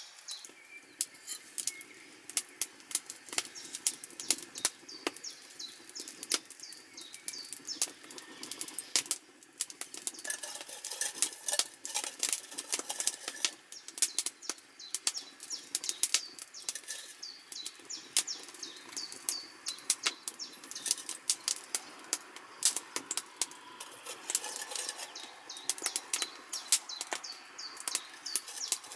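Wood campfire crackling, with irregular sharp pops throughout, and birds chirping in the background.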